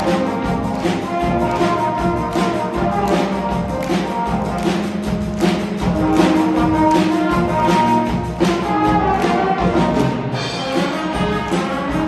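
An elementary-school band playing live on stage: brass instruments holding notes over drums and timpani that keep a steady beat.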